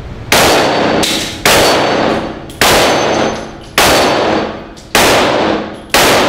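FK BRNO PSD pistol fired at a slow, steady pace, about seven shots roughly a second apart. Each shot has a long echoing tail from the indoor range.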